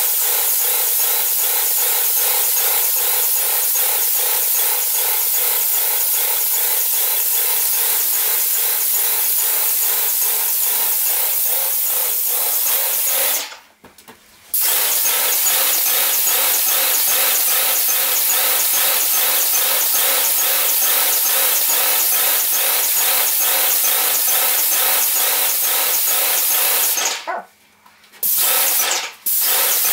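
Wagner Control Pro 250M airless paint sprayer running while paint is sprayed: a steady mechanical drone with a fast pulse and a spray hiss. It stops for about a second near the middle, cuts out again about three seconds before the end, and then comes back in short bursts.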